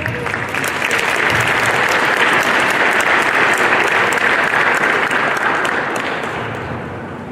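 Audience applauding, swelling over the first couple of seconds and fading away near the end.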